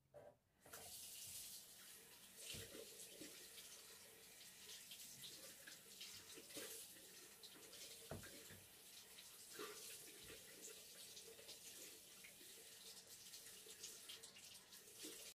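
Near silence: a faint steady hiss with scattered soft clicks and ticks.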